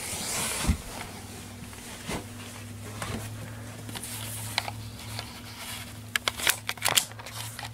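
Handling noise from a camera being moved: scattered clicks and short rustles, a cluster of them a little past the middle, over a low steady hum.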